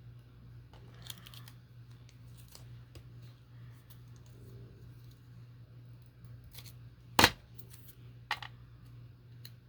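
Scissors snipping paper, with paper being handled: scattered short snips and rustles, and a sharp click about seven seconds in followed by another about a second later, over a low steady hum.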